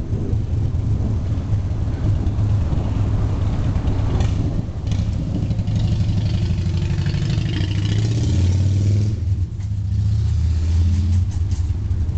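Long, low rolling thunder rumbling throughout, swelling brighter and louder through the middle for a few seconds before easing off.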